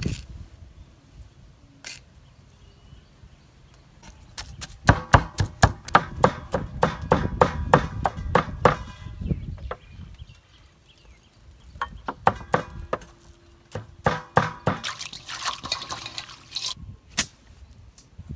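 A knife chopping quickly on a wooden chopping board, about five strikes a second, in two spells. Near the end comes a short hiss, then one last knock.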